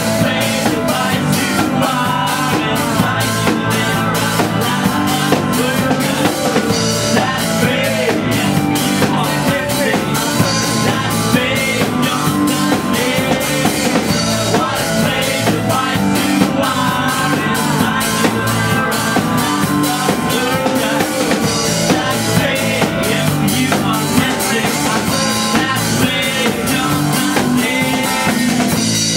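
Rock band playing live: a man singing lead over guitars and a drum kit keeping a steady beat.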